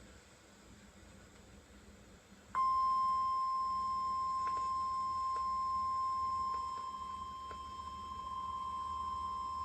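NOAA Weather Radio 1050 Hz warning alarm tone. After about two and a half seconds of faint radio hiss, a single steady high-pitched beep starts abruptly and holds unbroken. It is the alert signal that a warning message is about to be broadcast.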